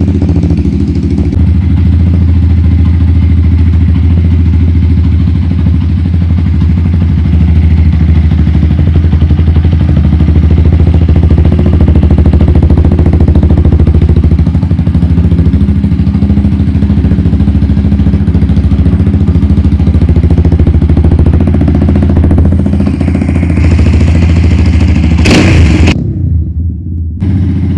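Rusi Mojo 200 motorcycle engine idling steadily, its idle running a little high. There is a brief knock near the end.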